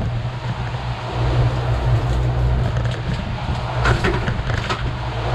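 Twin outboard motors running steadily as the boat trolls, a low constant drone under a rush of wind and water, with a few light clicks about four seconds in.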